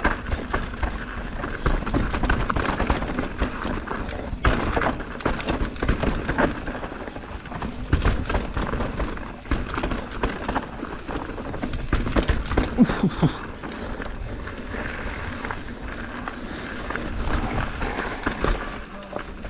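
Mountain bike ridden down a rough downhill track: a continuous rush of tyres and air, with dense, irregular clattering and knocks as the bike rattles over the bumps.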